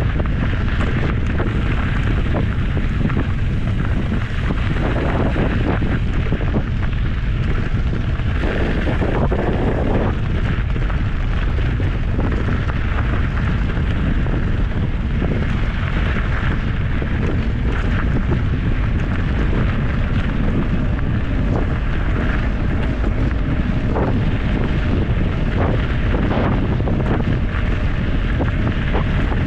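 Steady wind buffeting the microphone of a handlebar-mounted camera on a bicycle ridden fast over a gravel road, over the crunch and rattle of knobby tyres on loose gravel.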